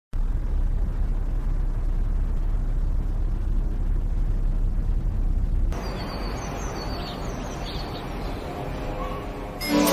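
Steady low rumbling noise that drops to a quieter hiss about six seconds in. Music starts just before the end.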